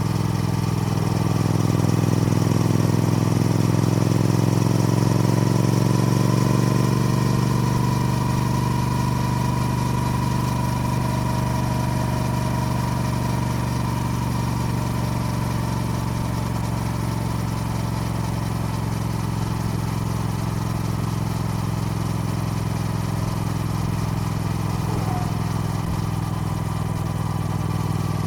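Triumph Speed Twin motorcycle's parallel-twin engine running continuously, a little louder with its pitch shifting during the first several seconds, then settling to a steady note.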